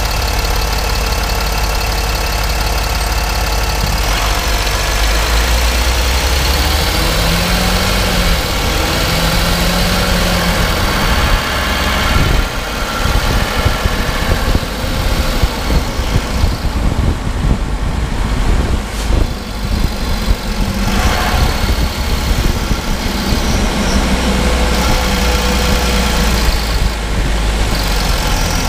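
Driving noise picked up inside the wheel arch of a Mercedes-Benz ML W164 on Airmatic air suspension: a loud, steady low rumble of tyres, road and engine. About 12 seconds in it turns uneven, with irregular knocks and thumps.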